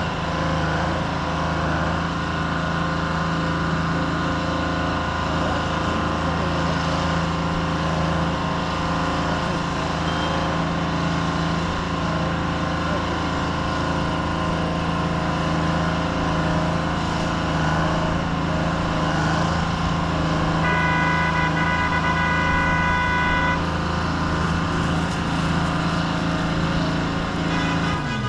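Old excavator's diesel engine running steadily. About two-thirds of the way through, a high steady whine sounds for about three seconds, and the engine note drops right at the end.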